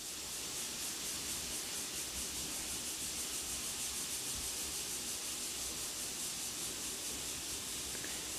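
A steady hiss with a faint, even pulsing, unchanged throughout and with no distinct handling sounds.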